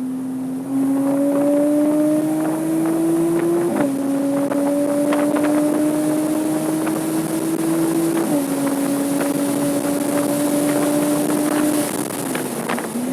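Porsche 987.2 Cayman S 3.4-litre flat-six pulling hard through the gears: the engine note climbs steadily, drops sharply at two upshifts about 4 and 8 seconds in, then holds nearly level before falling near the end as the driver lifts, with a short rise and fall in pitch typical of a downshift blip. A steady high rushing hiss and scattered sharp ticks run underneath.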